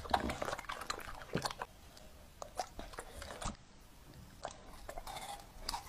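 A bully-type dog chewing pieces of fruit, with a run of irregular wet crunches as it bites.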